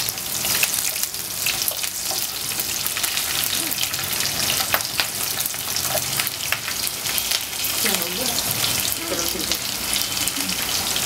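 Green chillies, onion, ginger and garlic sizzling in hot mustard oil in a nonstick frying pan, with a steady hiss and many small crackles of spitting oil, while a slotted spatula stirs them.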